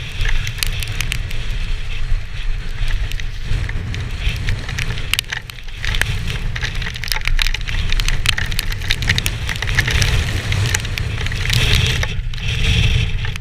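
Downhill mountain bike ridden fast on a wet gravel trail, heard from a helmet-mounted camera: a steady wind rumble on the microphone with the hiss of tyres on wet gravel and frequent rattles and knocks from the bike over rough ground.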